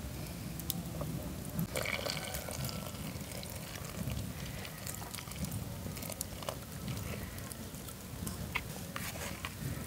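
Water trickling from a small cup into a plastic bowl of flour, over a steady low background rumble, with scattered small clicks.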